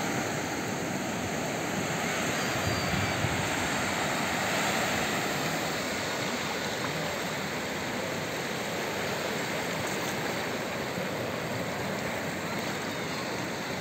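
Small ocean waves breaking and washing up a flat sandy shore: a steady surf noise.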